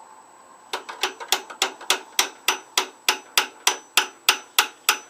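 Hammer tapping steadily on the stuck valves of a 5 hp Tecumseh lawnmower engine to free them, about three sharp blows a second with a light ring. The tapping starts about a second in.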